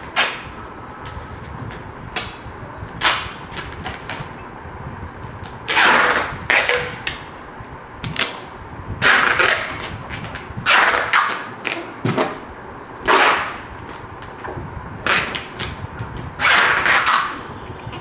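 Clear packing tape pulled off the roll in a dozen or so strips, some brief and some about a second long, while sealing a cardboard box.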